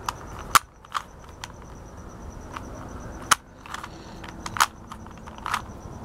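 Plastic Rubik's Cube layers clicking and clacking as faces are turned by hand, in a string of sharp clicks at irregular intervals while a move sequence is carried out.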